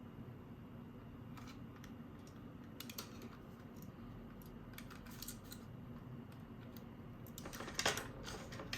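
Faint small clicks and light scrapes of a plastic gaming mouse and small tools being handled on a desk: a few scattered clicks at first, busier near the end.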